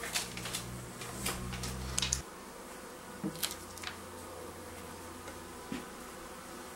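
Honeybee buzzing close by, a low steady hum that stops abruptly about two seconds in, with light clicks and rustles from hands handling paper labels and glass honey jars.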